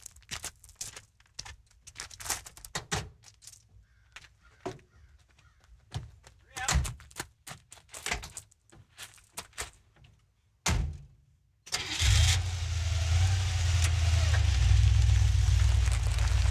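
Scattered light clicks and crackles, then, about twelve seconds in, a car engine sound starts suddenly and runs on loud and steady with a deep rumble.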